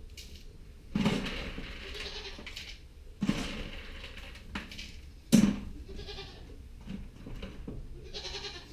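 Nigerian Dwarf goats bleating: about five calls one after another, each up to a second or so long.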